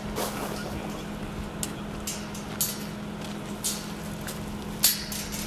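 Crunching on gravel from people walking and dragging an animal carcass: a few scattered crunches and clicks, about one a second, over a steady hiss and low hum.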